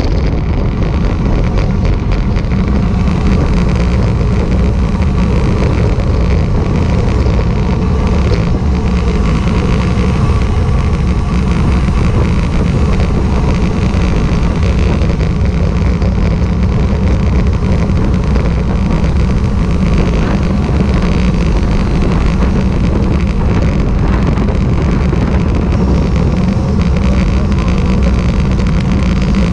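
Steady, loud wind noise on the microphone of a camera moving at speed, mostly a low rumble with an even rush above it.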